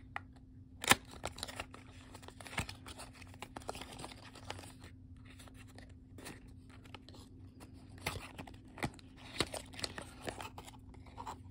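Small paperboard cosmetics carton being opened and handled: rustling and scraping of the cardboard as the end flap is pulled open, with scattered clicks and taps, the sharpest about a second in.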